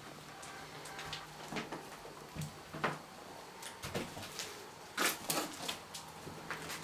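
Footsteps on fallen plaster, wallpaper and debris over a wooden floor: irregular steps and scuffs, with a louder cluster about five seconds in.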